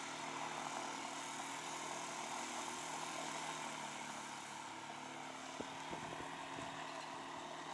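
Old Mariner outboard motor running steadily under way, with a freshly replaced water-pump impeller and its cooling water flowing. A few faint knocks come about two-thirds of the way through.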